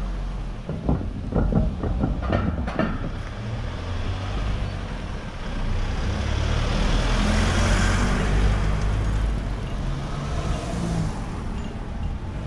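A box truck passing close by on the street: its engine and tyre noise swell to a peak about seven to eight seconds in, then fade. Under it runs a steady low rumble, and a quick cluster of sharp clicks or knocks comes in the first few seconds.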